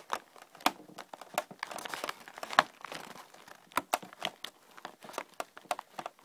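Paper vacuum cleaner dust bag crinkling, with irregular plastic clicks and knocks as it is pushed onto its mounting post in the bag housing of a Hoover Turbopower 3 upright.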